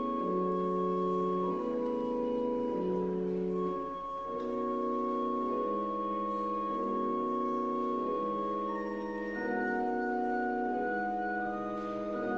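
Church organ playing a slow prelude: low chords alternate about every second and a half beneath a long held high note, with a brief lull about four seconds in, and a higher line of held notes enters past the middle.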